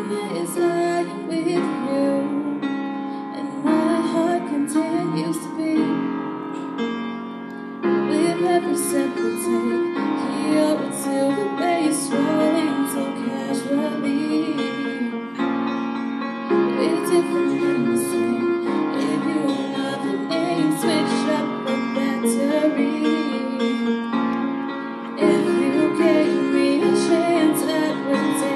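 A girl singing into a microphone, accompanied by a grand piano. The piano and voice grow louder about every eight or nine seconds, near 8, 17 and 25 seconds in.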